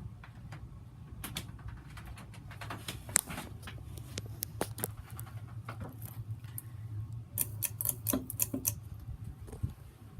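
Hunter Original ceiling fan running, its oil-bath motor giving a steady low hum, with irregular clicks and ticks over it that come thicker and louder near the end.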